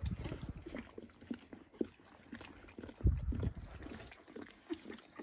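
Eleven-day-old Dalmatian puppies grunting and snuffling among quick wet smacking sounds, with a dull low thump at the start and another about three seconds in.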